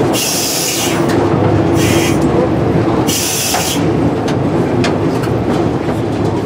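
Sprague-Thomson metro train pulling out of a station, heard from the driver's cab: a steady running rumble, with three short bursts of hiss in the first four seconds and a few sharp clicks.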